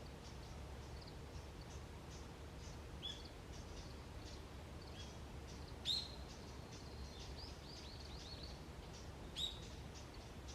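Wild birds calling in an autumn forest: many short, high chirps, with two louder sharp calls about six and nine seconds in that sweep down and end on a held note, over a low steady rumble.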